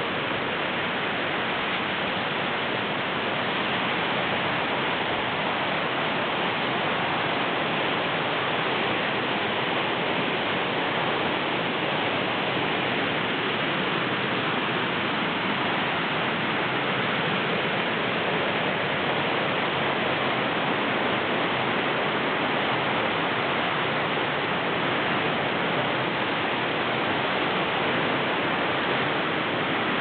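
Waterfall and stream water rushing with a steady, unbroken roar.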